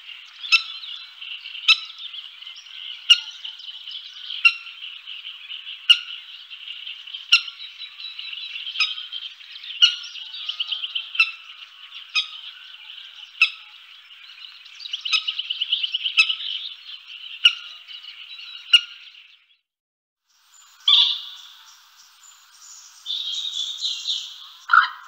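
Birds calling: a sharp call repeated about every second and a half over a continuous high chirping chorus. The calling breaks off briefly about 20 seconds in and resumes with a different texture.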